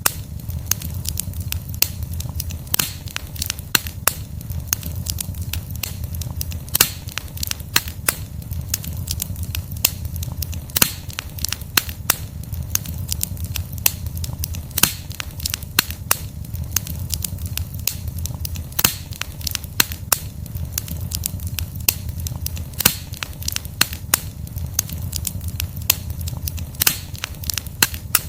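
Wood campfire burning: logs crackling and popping in frequent irregular sharp snaps over a steady low rumble of the flames.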